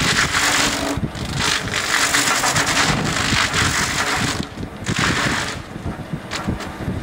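The butt end reducer's underneath milling shaft is cutting the root flare off a log, giving long stretches of loud chipping noise that break off briefly a few times. A steady engine rumble from the machinery runs underneath.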